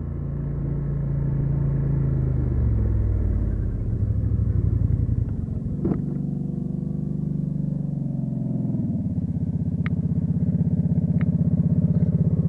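Polaris Sportsman XP 850 ATV engine slowing as the quad rolls to a stop, its pitch falling over the first few seconds, then settling into a steady, evenly pulsing idle for the last few seconds, with a single sharp click about halfway through. The engine is overheating because its radiator fan has failed.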